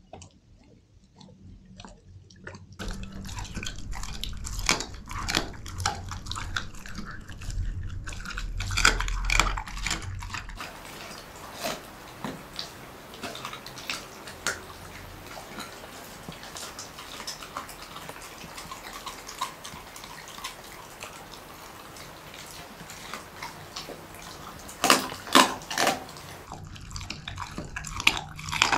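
Belgian Shepherd Groenendael dog biting and chewing raw chicken and organ meat, heard close up as wet, clicky mouthfuls. The chewing is heaviest in the first third. A few loud sharp bites come near the end.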